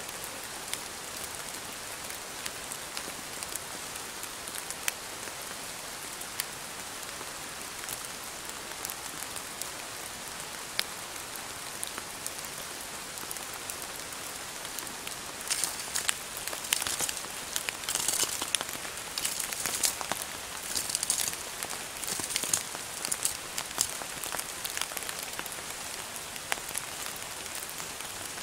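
Steady rain falling, with single drops ticking sharply here and there. For several seconds a bit past halfway, louder crackling rustles come thick and fast over the rain, then thin out again.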